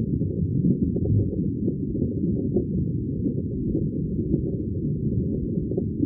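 Underwater sound of flowing stream water around a school of alewives swimming upstream: a steady, muffled low rumble with faint scattered ticks above it.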